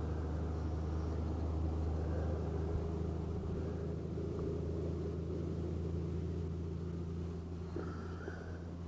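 Vehicle engine running steadily, a low even hum that eases slightly toward the end.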